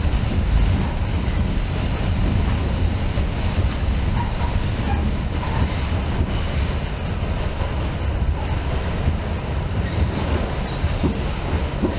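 New York City subway D train running along the track: a steady rumble of wheels and cars, with a few sharp knocks near the end.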